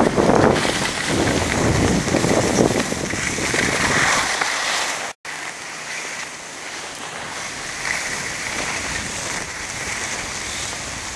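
Rushing noise of wind buffeting the microphone and skis sliding over snow while skiing downhill, heavier and rumbling at first. It drops out suddenly for a moment about five seconds in, then goes on as a lighter hiss.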